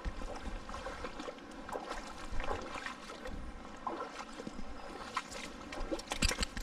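River water running steadily, with scattered clicks and splashes and a cluster of sharp clicks near the end.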